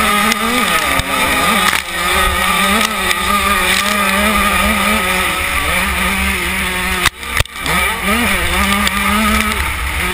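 KTM 85's two-stroke engine, heard from a camera mounted on the bike, revving up and down as it is ridden hard around a motocross track. The sound cuts out briefly about seven seconds in.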